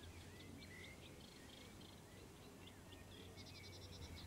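Faint birdsong: small birds chirping and twittering, with a quick run of repeated high notes about three seconds in, over a low steady hum.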